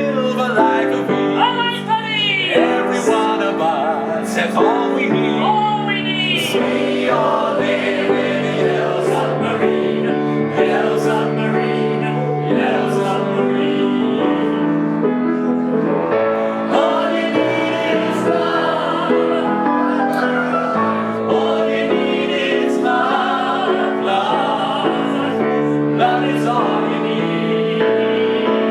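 Music with singing voices over piano accompaniment: long held, wavering sung notes over a steady bed of lower notes.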